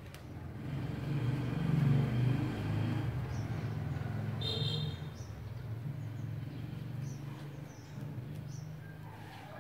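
Low engine rumble that swells over the first couple of seconds and slowly dies away, like a vehicle passing. There is a brief high squeak about four and a half seconds in and a few faint high chirps.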